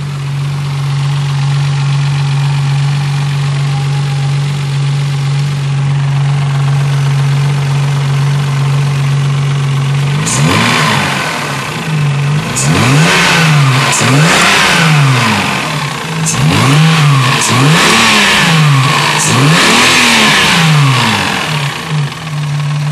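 Mazda 323F Lantis's 2.0-litre KF-ZE V6 idling steadily. About ten seconds in it is revved up and let fall back about half a dozen times in quick succession, then settles back to idle near the end.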